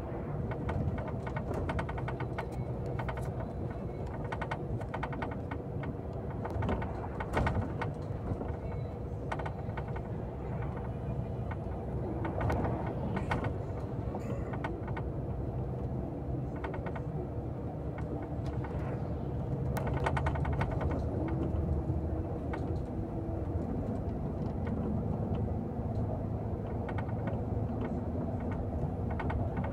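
Vehicle engine running steadily while driving, with frequent short rattles and clicks over the drone.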